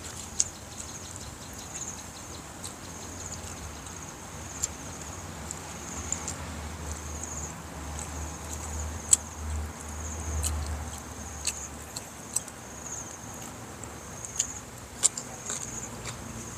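Insects trilling steadily in a high, pulsing chorus, with sharp clicks of eating by hand scattered through, about eight of them, and a low rumble about halfway through.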